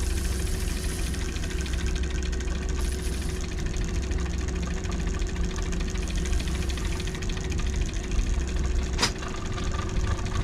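Honda outboard motor running steadily at low trolling speed, a low even hum. A single sharp click about nine seconds in.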